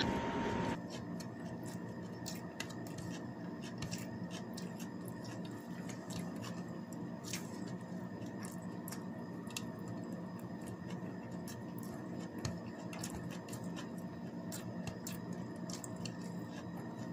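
Soft scattered clicks and smacks of a person eating rice with her fingers and chewing, over a steady low hum. Background music fades out just after the start.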